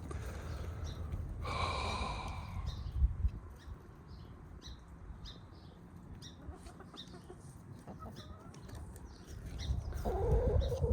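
Backyard hens: one gives a short, drawn-out squawk about a second and a half in. Light scattered ticks follow, and a lower wavering call comes near the end.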